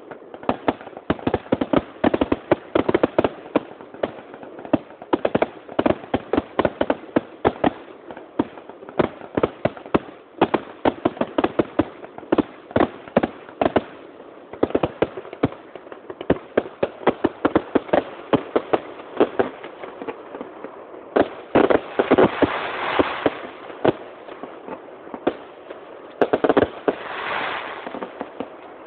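Fireworks display: a rapid run of sharp bangs and crackles from bursting aerial shells, several a second, thickening into a dense crackle twice in the latter part.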